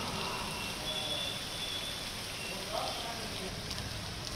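Heavy rain pouring steadily onto a waterlogged street, a constant hiss. A faint voice is heard briefly partway through.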